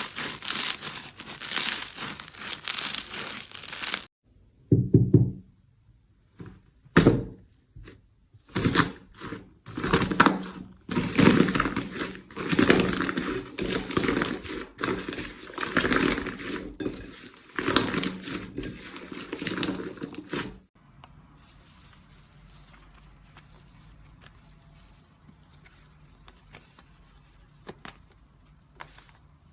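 Slime being squeezed and pressed by hand: dense crackling at first, then separate squelching presses and pops, falling to a faint hush for the last several seconds.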